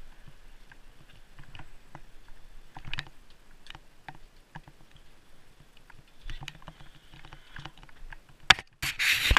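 Scattered light clicks and rattles from a bicycle rolling slowly over paving. About 8.5 s in there is a sharp knock, then loud rubbing and scraping as a hand takes hold of the GoPro camera.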